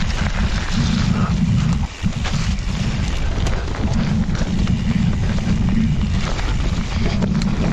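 Wind buffeting the microphone of a helmet-mounted action camera on a mountain bike descent, under the tyres' noise on a wet dirt trail and scattered knocks and rattles from the bike over bumps. The wind noise dips briefly about two seconds in.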